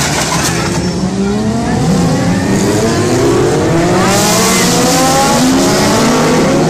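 Racing engines accelerating hard, their pitch climbing again and again in a series of rising whines, over a steady noisy rush.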